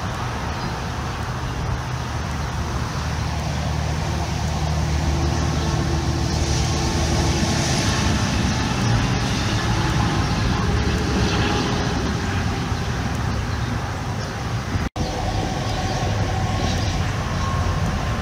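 Steady low rumbling noise, with a split-second dropout about fifteen seconds in.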